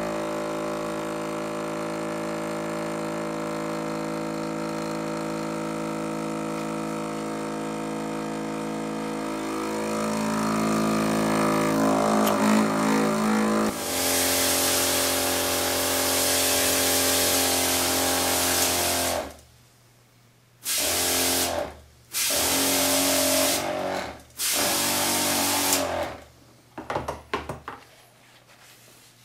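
FloJet 2100-987 12-volt diaphragm pump running, a steady whir with a strong hum, while it tries to self-prime. Its tone changes about ten seconds in, and from about fourteen seconds water gushes out with a loud hiss over the pump. After about nineteen seconds the pump and the water cut out and come back three times in short bursts of a second or so.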